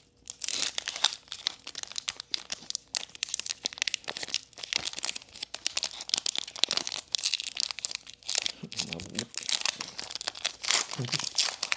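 Foil Pokémon TCG booster pack wrapper crinkling and tearing as it is pulled open by hand, a dense run of crackles throughout.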